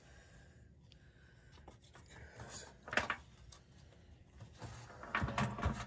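Light scraping and rubbing with a few scattered knocks as parts and tools are handled at the skid steer's chain case: one sharp knock about three seconds in and a few more near the end.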